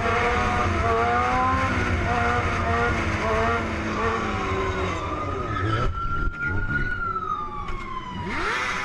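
Motorcycle engines running at speed, with wind noise, their pitch wavering as the riders work the throttle. From about five seconds in, a police siren wails, slowly rising and falling, over the bikes.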